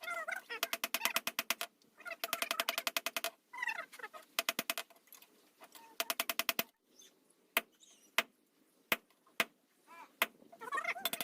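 Quick runs of sharp taps, about a dozen a second, in three bursts, then five single sharp knocks spaced roughly half a second to a second apart. A bird calls in between the bursts.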